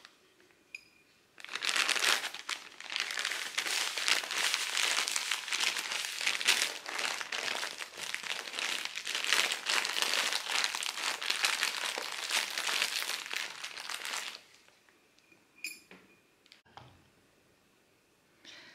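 Thin plastic wrapping on a roll of cotton pads crinkling as pads are pulled out of it, lasting about thirteen seconds and then stopping. A couple of light clicks follow.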